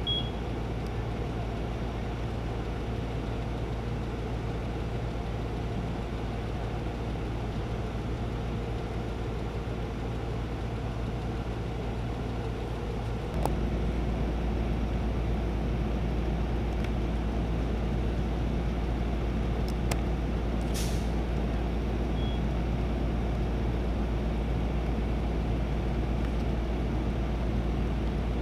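Fire engine's diesel engine running at a steady idle, a constant low rumble; it becomes louder about halfway through.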